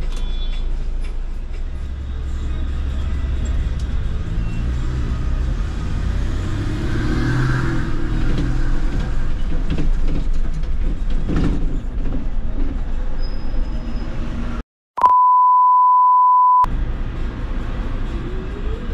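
MAN city bus running, with its engine rumble and road noise heard from the driver's cab. About fifteen seconds in, the sound cuts out and a loud, steady beep tone plays for about a second and a half, then the bus noise returns.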